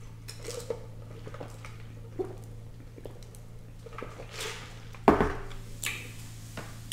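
A lidded paper soda cup with a straw is handled: a sip through the straw and small clicks and rattles, then the cup is set down on the table with a thump just after five seconds in.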